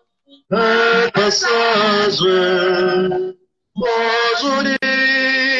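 Voices singing a French hymn to Mary in two long phrases, with a short break about three seconds in.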